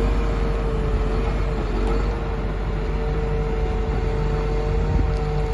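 2009 Cat 140M motor grader's diesel engine idling steadily, with a steady tone held over the low rumble.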